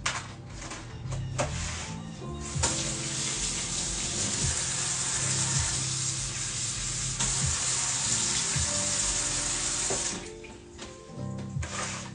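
Kitchen tap running in a steady stream for about seven seconds, turned on a couple of seconds in and shut off near the end, with a few light knocks before it. Background music plays throughout.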